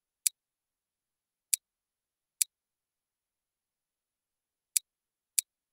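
Five short, sharp clicks, unevenly spaced, as the view controls are clicked through with the mouse in a computer program; dead silence between them.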